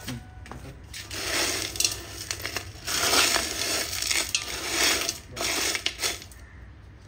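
Granulated silver clinking and rustling in a steel bowl as a hand scoops and stirs through the grains. It comes in three swells, each a second or two long, with sharp little clicks among them.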